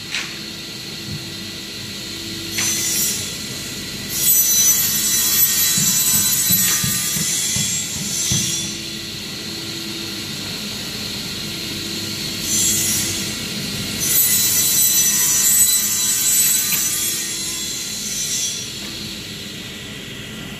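Circular saw blade of a CNC panel saw cutting through a stack of plywood sheets. There are two long cuts of about four seconds each, one about four seconds in and one about fourteen seconds in, each with a brief shorter burst before it. The machine runs more quietly between the cuts.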